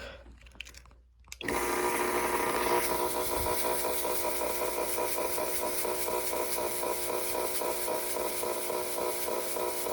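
Fog machine running, a steady buzz with a hiss as it puffs out fog, starting suddenly about a second and a half in.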